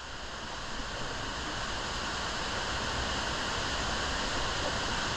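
Steady rushing noise of falling water echoing in a large vertical cave shaft, slowly growing louder.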